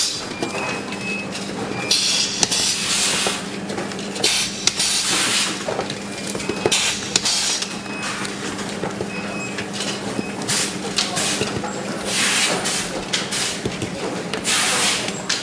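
Assembly-line workshop noise: a steady machine hum under short, irregular hisses of air, about six of them, each lasting about half a second to a second.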